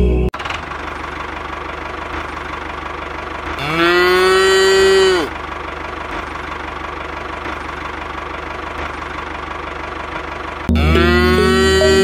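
Cow mooing twice, one moo lasting about a second and a half starting near four seconds in and another beginning near the end, over a steady engine idling.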